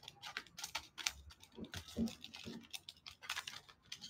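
Metal fork clicking and scraping against a dish while eating: a quick, irregular run of light clicks and taps, with a few duller knocks in the middle.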